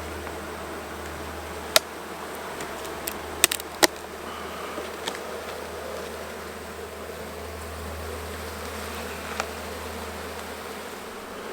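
Honeybees buzzing steadily around an open hive, with sharp clicks and knocks of wooden frames and hive parts being handled: one early, a cluster about three to four seconds in, and another near the end.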